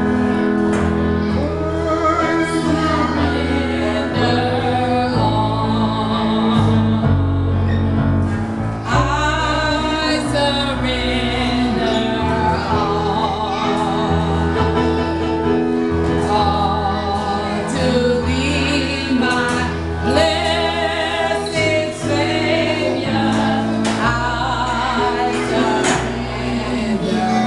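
Gospel music: voices singing over instrumental accompaniment, with held bass notes that change every second or two.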